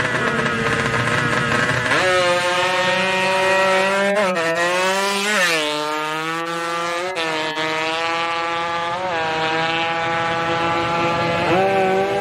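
Drag-racing motorcycle engine revving at the line, then launching hard about two seconds in and accelerating away, its pitch climbing and dropping back at each of several gear changes.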